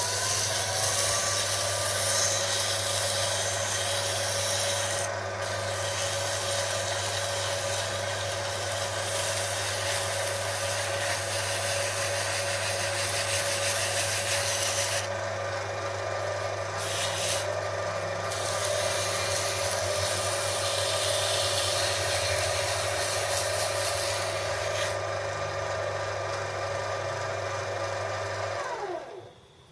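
Lathe motor coming up to speed with a steady whine and hum while sandpaper rubs against the spinning steel shaft. The rubbing hiss breaks off briefly a few times as the paper is lifted. Near the end the lathe is switched off and winds down.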